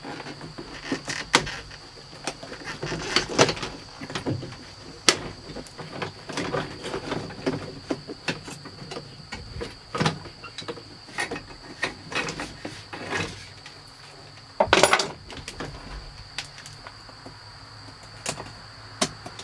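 Plastic clicks, knocks and rattles of a car's interior door trim panel being pried loose and pulled away from the door, with a louder burst of clatter about fifteen seconds in.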